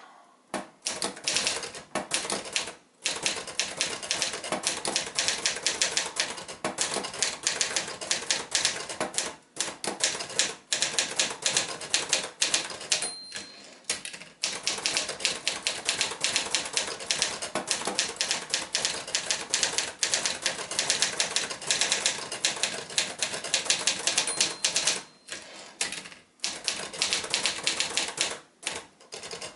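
Olivetti Studio 45 manual portable typewriter being typed on at a brisk pace, keys and typebars clacking in fast runs broken by short pauses. The margin bell gives a short ring twice, about 13 and 24 seconds in, as a line nears its end.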